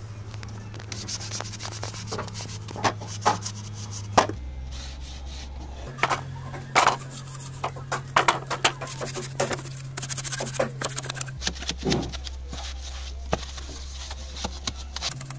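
Rubbing and scraping as yellow filler paste is worked over a wooden sewing-machine base box with a sponge and hands, with scattered sharp knocks from the wooden box being handled.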